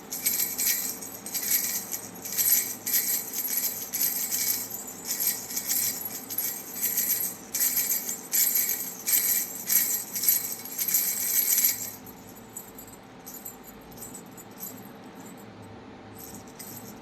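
Baby's bell rattle toy shaken in quick repeated shakes, jingling, then stopping about twelve seconds in.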